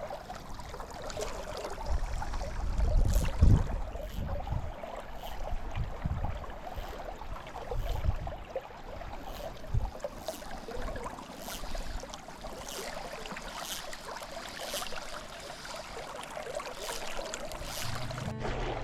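Flowing river water rushing steadily, with a few low thumps about two to four seconds in.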